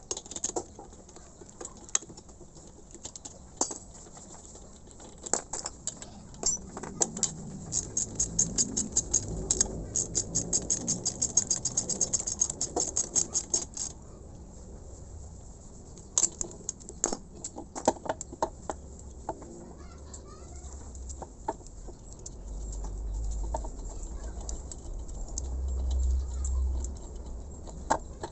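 Ratchet wrench clicking as the bolts on an air compressor head are loosened. There are scattered metal clicks and knocks, a fast, even run of clicks at about five a second for several seconds midway, and a low rumble near the end.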